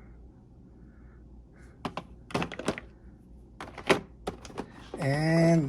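A few light clicks and taps of small plastic toy parts being handled and set down, in uneven clusters from about two seconds in; a man's voice starts near the end.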